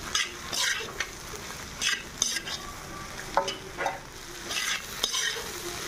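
Chicken and vegetables coated in sauce stir-frying over high heat in a kadai: steady sizzling, with a metal slotted spatula scraping and tossing against the pan about every half second to a second.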